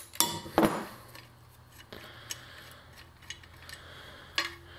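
Light metallic clicks and clinks of a ratchet socket and bolt handled against a steel suspension arm on a workbench, busiest in the first second, with a few single clicks after. A faint steady low hum sits underneath from about a second in.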